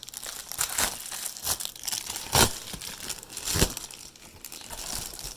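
Packaging of a shipped package being opened by hand: irregular crinkling and tearing, with two louder rips about two and a half seconds in and again a second later.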